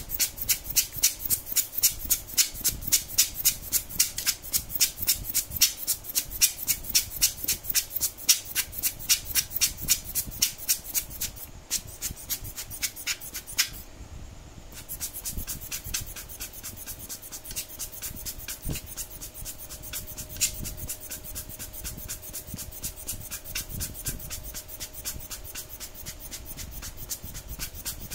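Rubber hand air-blower bulb squeezed over and over, sending short puffs of air at about three a second onto a motherboard's PCH chipset to cool it after hot-air heating. The puffs are louder for the first dozen seconds, pause briefly around the middle, then go on more softly.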